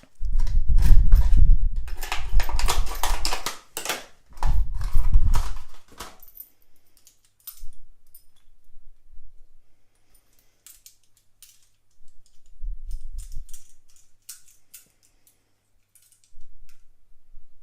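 A padlock being handled and picked with wire lock-pick tools, giving metal clicks and rattles. There are dense bursts of clicking with handling knocks for about the first six seconds, then sparser light clicks.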